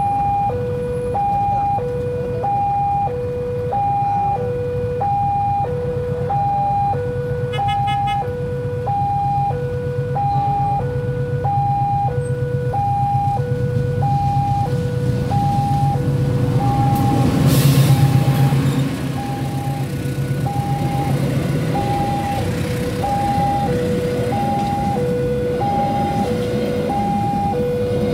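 Railway level-crossing warning signal sounding a steady two-tone alarm, a higher and a lower note alternating about once a second each. Under it, the rumble of an approaching train builds to its loudest with a brief burst of noise about two-thirds of the way in, then the coaches roll past.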